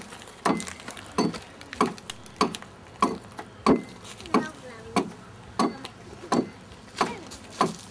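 Hand adze chopping out the inside of a wooden dugout canoe hull: a steady run of sharp knocks on the wood, about one and a half strokes a second.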